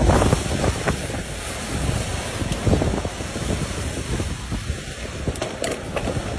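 Tornado wind buffeting a phone's microphone: a continuous low rumble that swells in gusts just after the start, about two and a half seconds in, and again at the end.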